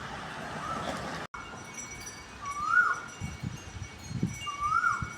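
A bird calling repeatedly, each call a short rising note that drops off, about every two seconds, with wind gusting on the microphone.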